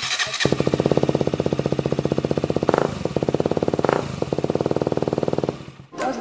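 KTM Duke 125 single-cylinder engine idling through its new Radical Racing full exhaust: a rapid, even train of exhaust thumps, about a dozen a second, with two brief flares partway through.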